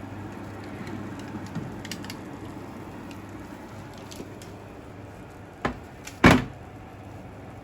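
A few light clicks over a steady low hum, then two sharp knocks a little over half a second apart near the end, the second the loudest, like a door or lid being shut during kitchen handling.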